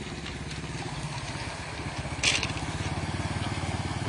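Small motorcycle engine running at low speed, a steady throbbing beat, as the bike moves through a flooded street. A brief loud burst of noise cuts in a little over two seconds in.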